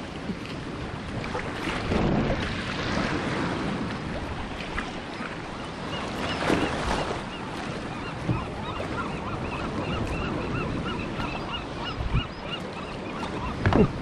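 Ocean swell sloshing and splashing around a sea kayak, with wind on the microphone and a loud splash near the end. From about eight seconds in, a seabird calls in a rapid run of short, repeated notes.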